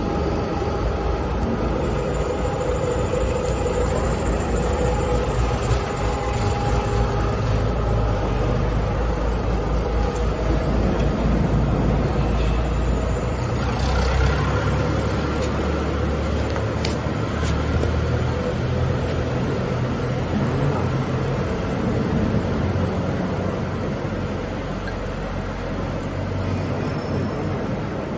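CNC lathe running: a steady machine drone with a few faint held tones, its low rumble shifting about halfway through.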